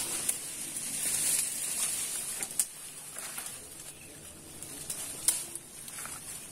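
Tropical forest ambience: a steady high-pitched insect drone that swells and fades, with faint bird calls behind it. A couple of sharp snaps of stems or twigs, about two and a half and five seconds in, as someone pushes through the undergrowth.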